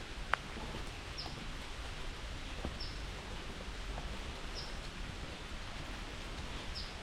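Steady rain falling on the woods, an even hiss, with a short high chirp repeated about every second and a half and a sharp tap near the start.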